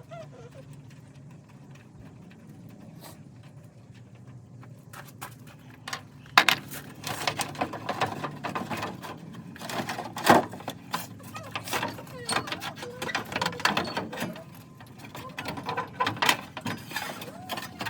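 Irregular metallic clinking, clanking and rattling of hand tools and fasteners during work on a truck's engine bay while the fan shroud is taken off. It starts about six seconds in; before that there is only a faint low hum.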